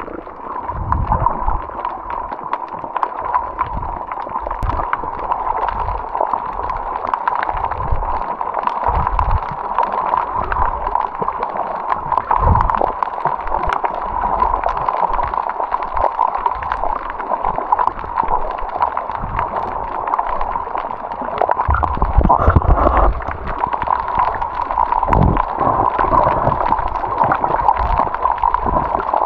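Muffled gurgling and sloshing of water over a steady hum, broken by irregular low thumps, with a heavier burst a little over two-thirds of the way through.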